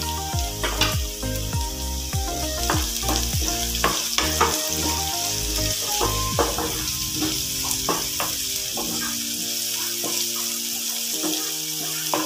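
Chopped onions and green chillies sizzling in hot oil in a non-stick frying pan as they sauté. A wooden spatula stirring them gives irregular scrapes and knocks against the pan, which become fewer over the last few seconds.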